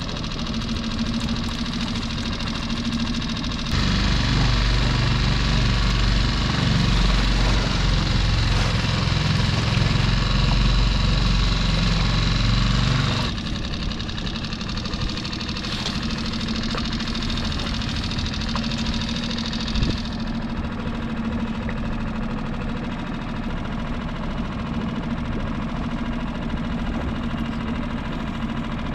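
Small boat motor running steadily with a constant hum. From about four seconds in to about thirteen seconds it gets louder, with added low rumble, then settles back to the quieter steady running.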